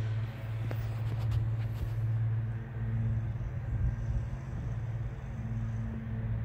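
A machine running with a steady low hum that holds one pitch, with a few faint clicks about a second in.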